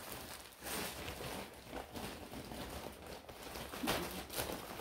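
Faint rustling and crinkling of small plastic packaging being handled, with a few light scrapes and knocks.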